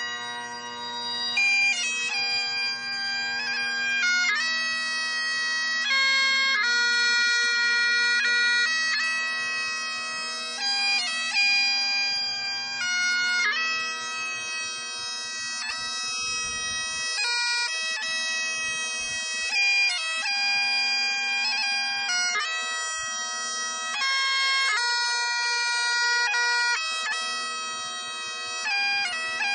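Bagpipes playing a slow tune over a steady drone, the melody moving from note to note every second or two.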